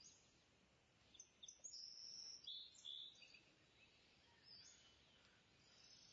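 Faint birds chirping over a low background hiss, with a burst of short high calls between about one and three seconds in.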